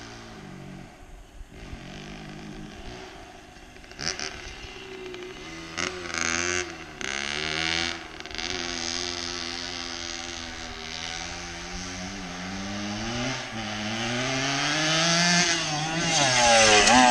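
Kawasaki KDX80 dirt bike's small two-stroke engine, blipped a few times, then accelerating hard, its pitch rising and dropping several times as it goes up through the gears. It grows louder toward the end.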